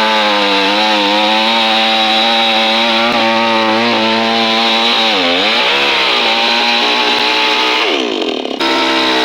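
Two-stroke chainsaw running at high revs while cutting through a coconut palm trunk, on the last remaining piece. The engine note is steady, then sags under load about five seconds in and again briefly near the end before picking back up.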